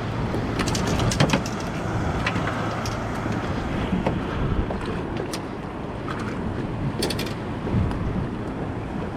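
Wind buffeting the microphone over the wash of choppy water, with a few short clicks, a cluster about a second in and another near the end.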